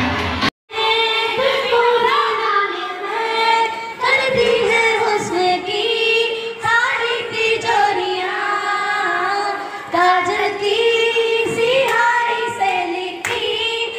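A girl singing solo into a handheld microphone, holding and bending long notes. It is preceded by a brief burst of children's crowd noise that cuts off suddenly about half a second in.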